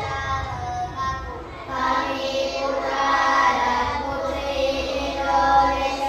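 Children singing together, holding notes that move up and down in a melody.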